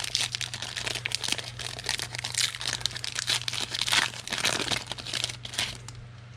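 Foil trading-card pack wrappers being torn open and crinkled by hand, a dense run of crackling that dies away just before the end.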